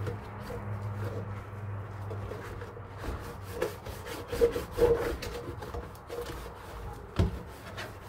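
A sponge-scourer scrubbing a plastic ice-cube tray, giving uneven rubbing and scraping strokes. There is one sharp knock near the end.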